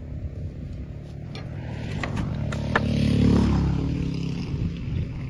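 A motor vehicle passing by: its engine sound builds to a peak about three seconds in, then fades away. A few sharp clicks are heard near the middle.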